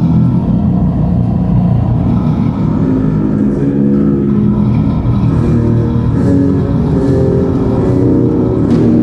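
Death metal band playing loud: heavily distorted electric guitars riffing over a drum kit, the notes changing in steps over a thick low rumble.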